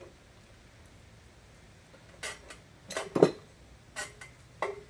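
Metal tool clinking against a fitting on a high-pressure air compressor as the fitting is tightened: about five sharp clinks starting about two seconds in, the loudest just after the third second.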